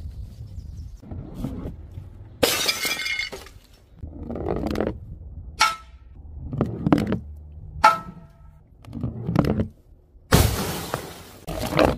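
A string of objects dropped from a height smash on hard paving tiles one after another, about eight impacts in all, with glass breaking. Two of the hits have a short glassy ring. The loudest, longest smashes come about two and a half seconds in and again near the end.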